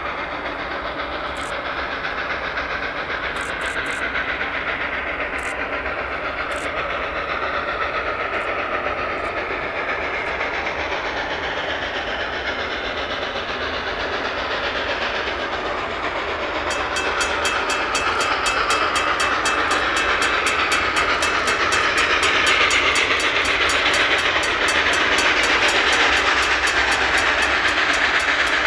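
Reading & Northern No. 425, a 4-6-2 Pacific steam locomotive, approaching under steam and growing steadily louder as it nears. About two-thirds of the way in, a fast, even beat of roughly four strokes a second joins the sound.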